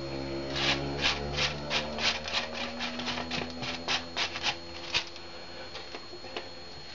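A spoon scraping a brown-sugar spice mix off a paper plate into a pot: a quick run of short scrapes, about three a second, that stops about five seconds in.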